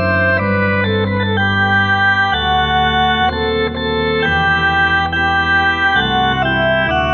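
Electronic organ played in slow, sustained chords, with the harmony changing about once a second over a held bass.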